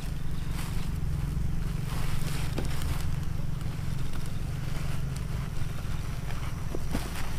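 Wind rumbling steadily on the microphone, with faint rustling and a few light clicks from squash vines being packed into a woven plastic sack.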